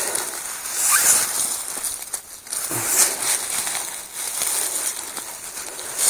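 Gloved hands raking and crumbling loose forest soil and dry leaves, a rough rustling and crunching with louder scrapes about a second in and again at three seconds, as the dug earth is searched by hand for a small metal target.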